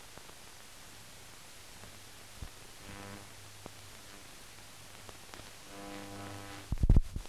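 Steady hiss and hum from a silent newsreel's transfer, with faint humming tones that swell briefly about every three seconds and a loud low thump near the end.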